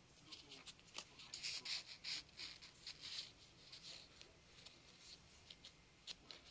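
Faint scratchy rustling and a few light clicks against cardboard as a Munchkin cat shifts inside a small cardboard box, the rustling thickest in the first half and thinning out after.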